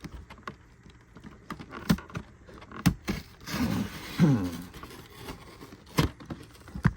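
Cardboard product box being pried and torn open by hand: scattered sharp knocks and clicks, with a louder stretch of scraping and creaking cardboard about three to four seconds in.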